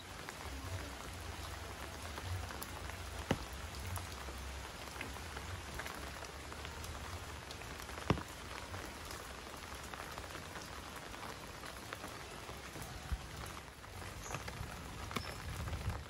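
Steady rain falling, with a few sharp single drop hits standing out; the loudest comes about eight seconds in. A faint low rumble runs underneath.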